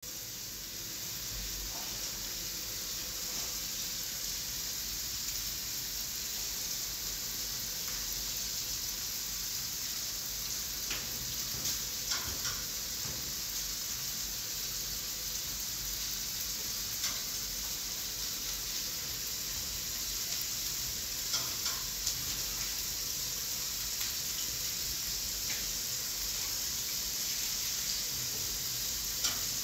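Rice being washed by hand in a metal pan under a running kitchen tap: a steady watery hiss with a few light clicks as the hands work the grains against the pan.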